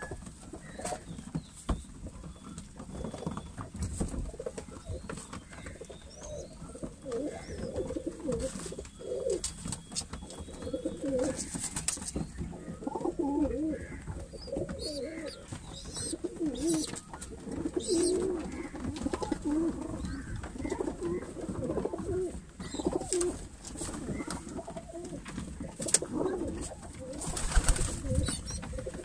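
A flock of domestic pigeons cooing continuously, overlapping wavering calls, with scattered clicks of beaks pecking grain. A pigeon flaps its wings briefly near the end.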